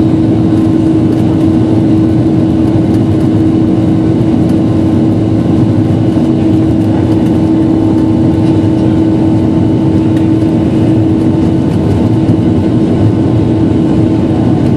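Passenger jet cabin noise while taxiing: a steady engine hum with one strong, even tone over a dense rumble, heard from a window seat inside the cabin.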